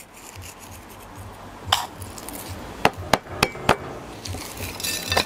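Hand salting a raw flank steak on a plate: several sharp clicks between about two and four seconds in, and fingers rubbing the salt into the meat near the end.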